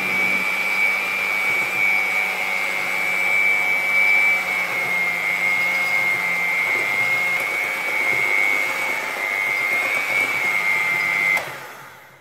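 Electric hand mixer running steadily with a high whine as its beaters work flour into cake batter; it is switched off near the end and winds down.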